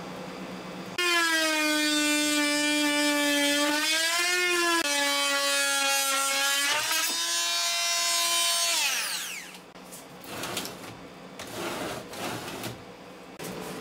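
Handheld electric rotary multitool running at high speed against a steel bracket, a high whine whose pitch dips and steps as it is loaded. About nine seconds in it is switched off and winds down, followed by softer scraping and knocks.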